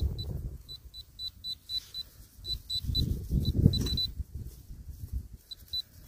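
A handheld metal-detector pinpointer beeping in short, high, same-pitched beeps as it is swept over the soil, coming in quick runs of a few a second: it is locating a metal target in the dug earth. Low rumbling handling noise runs underneath, loudest about three and a half seconds in.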